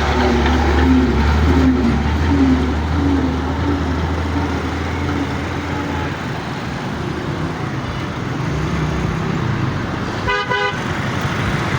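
Road traffic: a heavy vehicle's engine rumbles low and fades after about six seconds over a steady wash of noise, then a car horn gives one short toot near the end.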